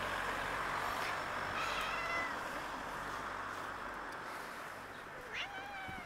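Cats meowing: one short meow about two seconds in, and a second, lower meow near the end.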